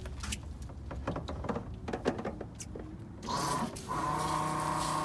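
Light taps and footsteps on a boat deck, then about three seconds in a steady mechanical buzz starts, breaks off briefly and carries on.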